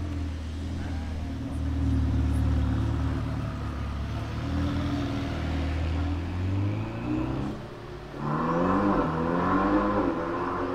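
Ferrari 488 Pista Spider's twin-turbo V8 running at low revs as the car rolls away, then accelerating hard about eight seconds in, the engine note climbing in pitch for about two seconds.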